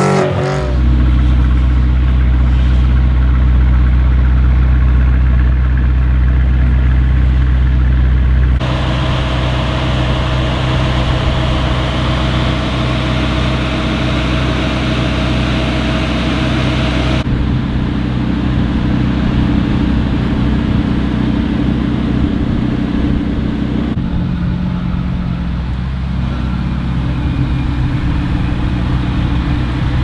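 ABT-tuned Audi RS6-R Avant (C8) with its particulate filter deleted, its twin-turbo V8 idling with a steady deep drone and no revving. The sound changes abruptly a few times between takes.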